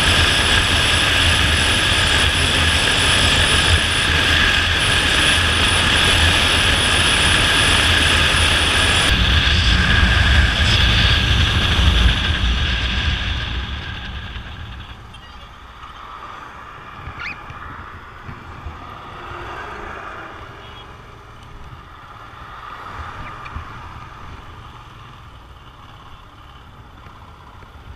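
Royal Enfield Himalayan's single-cylinder engine and rushing wind heard through a helmet-mounted camera while riding at highway speed. About twelve seconds in the noise dies away over a few seconds as the motorcycle slows, leaving quieter low-speed running.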